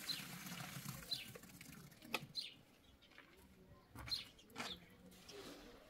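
Short, high bird chirps, each falling in pitch, repeating every second or so, with a few soft knocks between them.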